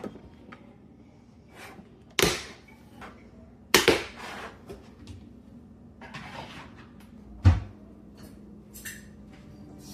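A few separate sharp knocks and clatters in a small room over a low steady hum, the loudest about two, four and seven and a half seconds in.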